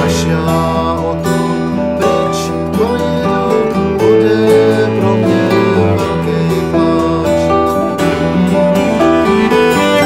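Background music led by acoustic guitar, a country-style tune with a steady bass line.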